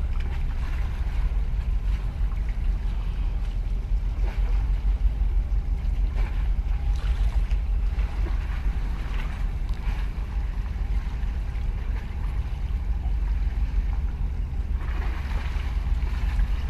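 Wind buffeting the microphone as a steady, fluctuating low rumble, with a few soft washes of water around the concrete breakwater blocks, the longest near the end.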